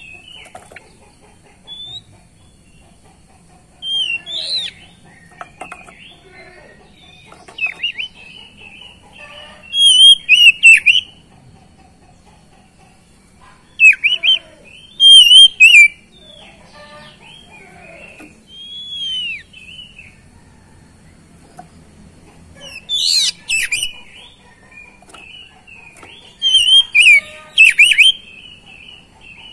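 Oriental magpie-robin singing: loud bursts of whistled phrases with quick sliding notes, repeated every few seconds with short pauses between.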